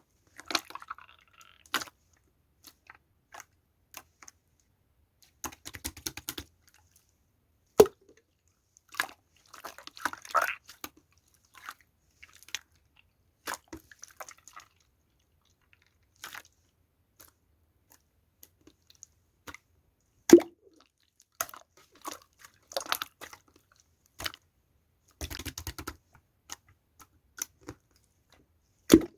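Intermittent close handling sounds: scattered small clicks and taps, a few short runs of rapid crackling, and three sharper knocks spread through the stretch.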